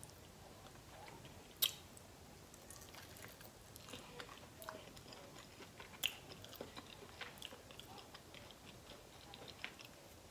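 Quiet chewing and biting into a buffalo chicken wing: soft mouth clicks, with two sharper snaps about a second and a half and six seconds in.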